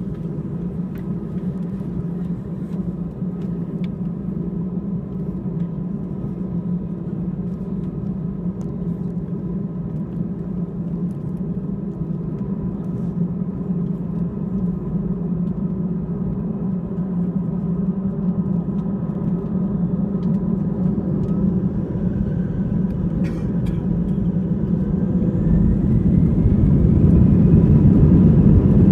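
Airbus A320 jet engines heard from inside the cabin: a steady low hum while taxiing that grows louder over the last ten seconds, with a whine climbing in pitch as the engines spool up for takeoff.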